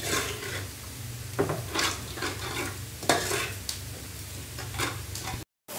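A spoon stirring fish curry in a metal pot, scraping and clinking against the pot several times, with frying sizzle in the background. The sound drops out briefly near the end.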